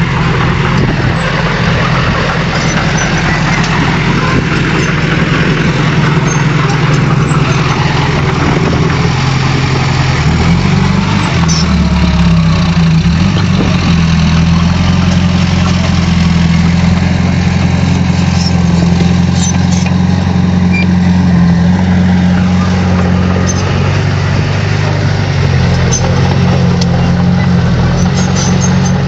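Heavy diesel engine of an earthmoving machine running steadily under load, its note shifting briefly about ten to fourteen seconds in before settling again.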